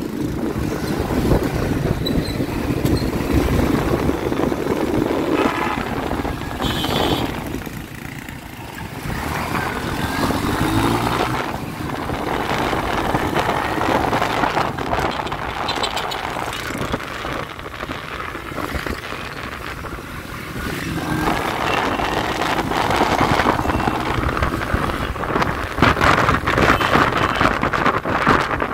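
Busy street traffic: the engines of cars and motorcycles running and passing in a steady, dense din.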